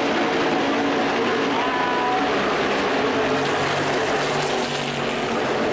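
A pack of NASCAR Whelen Modified race cars at speed, their V8 engines running together as one steady, loud drone. Several engine notes overlap and shift in pitch, with one rising note about two seconds in.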